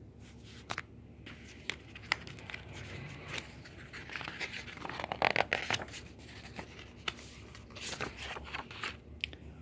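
Paper pages of a picture book being handled and turned: soft rustling and crinkling with scattered light clicks, busiest about five seconds in and again near the end.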